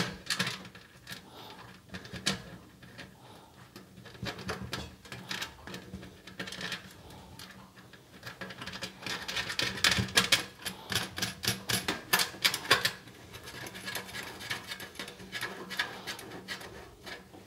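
Small metal clicks and scrapes as a screw is fitted and turned by hand in a hole in a sheet-metal UPS chassis. The clicking is densest and loudest about ten to thirteen seconds in.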